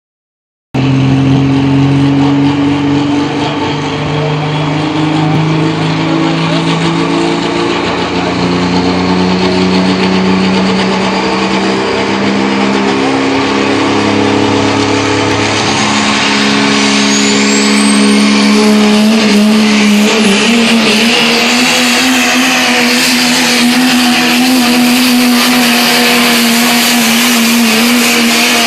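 Diesel pickup truck engine at full throttle pulling a sled, its note climbing slowly through the first half and then held high. A thin high whine rises briefly around the middle.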